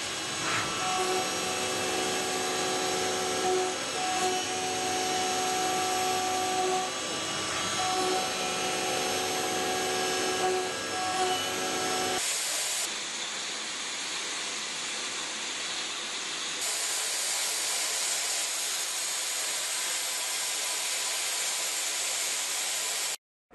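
CNC milling machine's end mill cutting a metal block: a steady cutting whine of several fixed tones, broken off briefly a few times. About halfway through it changes suddenly to an even hiss, which grows brighter a few seconds later.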